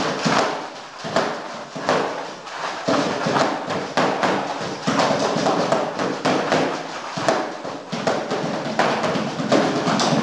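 A drum kit made of cardboard boxes being beaten hard: a fast, irregular run of thumps and taps with no pause.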